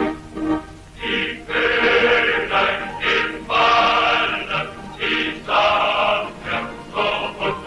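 Music with a choir singing, in phrases of one to two seconds broken by short pauses.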